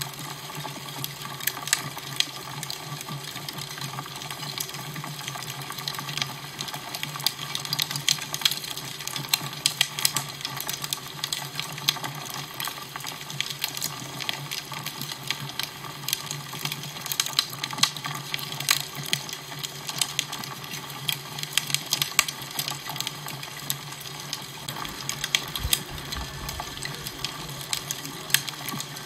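Fireplace fire crackling: a steady hiss with frequent sharp pops and crackles throughout, over a steady low hum.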